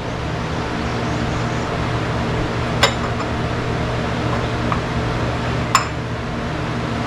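Two sharp metallic clinks, about three seconds apart, as small chainsaw parts are handled while the rim sprocket is fitted, over a steady mechanical hum.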